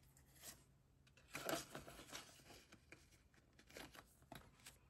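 Soft, brief rustles of paper banknotes being pulled from a stack and slipped into a cash envelope, the loudest about a second and a half in.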